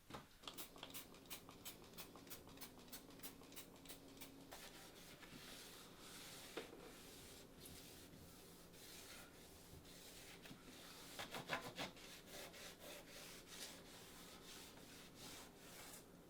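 Faint rhythmic scrubbing strokes against a surface during cleaning, about three or four a second for the first few seconds, then more scattered, with a louder flurry around eleven seconds in.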